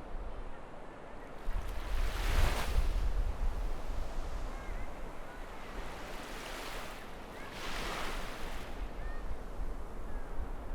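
Waves breaking and washing up a beach, with two surges, one about two seconds in and another around eight seconds. Strong wind blows throughout and buffets the microphone with low rumbling gusts.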